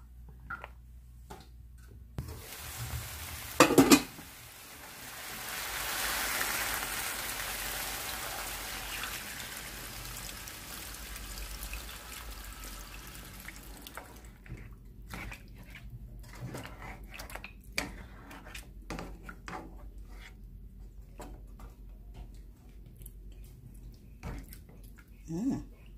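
Water poured from a stainless steel kettle into a pot of meat and broth, a steady rush for about ten seconds that fades out, after a loud knock just before it starts. Then a spatula knocks and scrapes in the pot now and then.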